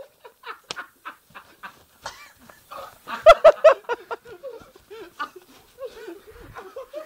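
Men laughing and letting out short yelps, with a loud burst of quick, pulsing laughter about three seconds in.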